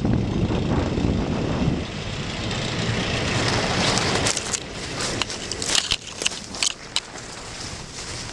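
Low rumble of wind buffeting the microphone, easing off about four seconds in. Footsteps then crunch and crackle through dry fallen leaves.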